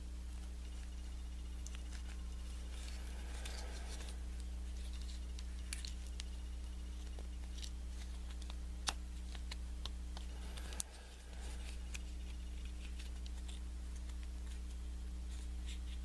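Faint scraping and a few sharp metallic clicks from a Kwikset knob lock cylinder being worked by hand, its plug being moved with a follower, over a steady low electrical hum.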